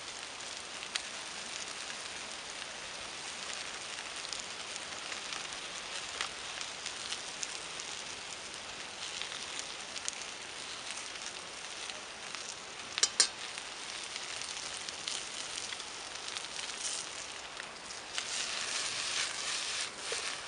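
Hokkaido pumpkin and kale sizzling in a frying pan over a wood fire: a steady hiss with scattered sharp pops, a louder double pop about 13 seconds in, and the sizzling swelling for a couple of seconds near the end.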